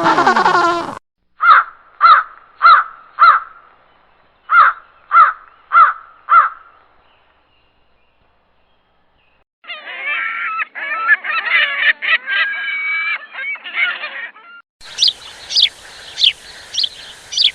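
A series of separate bird-call sound effects with gaps between them. First come eight short, sharp calls in two sets of four, then a pause, then about five seconds of dense, overlapping goose-like honking, and near the end a run of higher-pitched calls.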